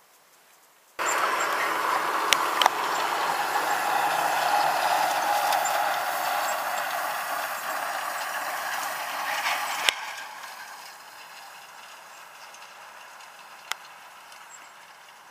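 Tractor and rotary hay tedder at work: a loud, dense mechanical rattle of the spinning tedder and tractor, with a few sharp clicks. About ten seconds in it drops to a fainter, steady rattle.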